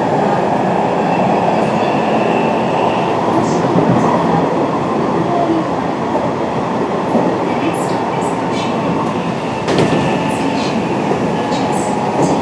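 Hanshin 1000 series electric train running between stations, heard from inside the car: a steady rumble of wheels on rail with scattered clicks over rail joints, and a faint steady tone beneath.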